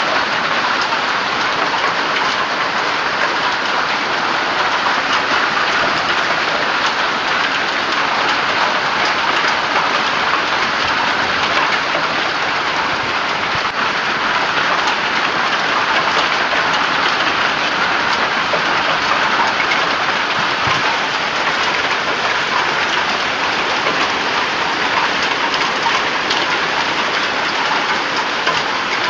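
A hailstorm pelting down with heavy rain: a dense, steady patter of countless small impacts on the ground and surfaces.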